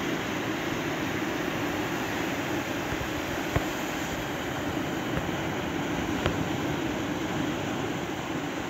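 Steady rushing of small surf breaking along a sandy beach, with two faint clicks, about a third and two thirds of the way through.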